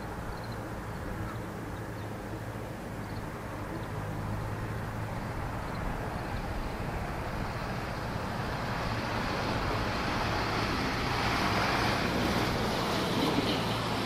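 Steady distant road-traffic noise with a low hum, swelling as a vehicle draws nearer and loudest near the end.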